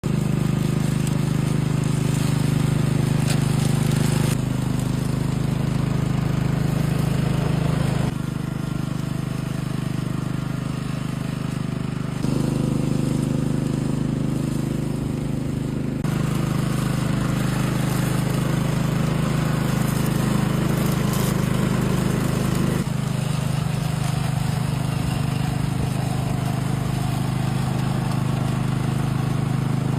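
Small petrol engine of a grass-cutting machine running steadily at constant speed, its tone and level shifting abruptly several times.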